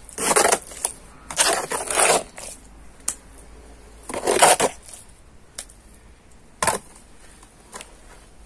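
Three short bursts of scraping, crunching noise, each under a second long, with a few sharp knocks between them, the loudest knock about two-thirds of the way through.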